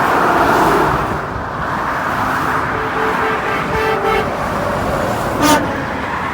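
A vehicle horn honking a few short toots over steady highway road noise, followed by one brief, sharp blip near the end.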